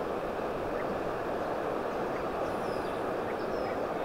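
Steady rushing outdoor background noise, with a few faint bird chirps over it.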